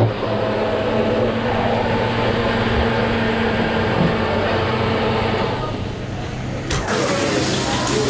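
Espresso machine steam wand steaming milk in a stainless steel pitcher: a steady hiss over a low, even hum.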